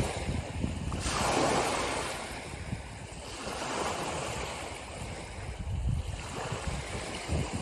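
Ocean surf: waves washing in and breaking, swelling and easing in slow surges a few seconds apart, with a low rumble.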